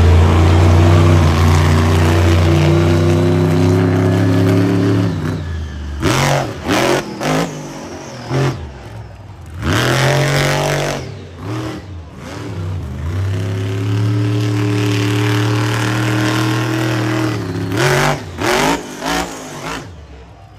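Monster truck engine at high revs: held steady for about five seconds, then a few short throttle blips and one rise-and-fall rev, another long steady hold, and a quick series of blips near the end.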